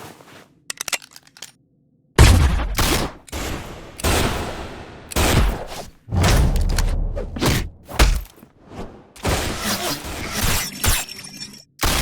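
Foley sound effects for an animated fight: a few light clicks, then a sudden heavy hit about two seconds in and a dense run of impacts, crashes and shattering hits with swishes between them.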